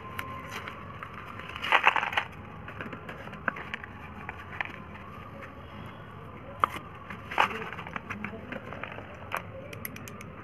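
Slate pencils clicking against each other and a small cardboard pencil box rustling as they are handled and pulled out. There are short scraping bursts, the loudest about two seconds in and another about seven seconds in, and a quick run of clicks near the end, over a steady background hiss.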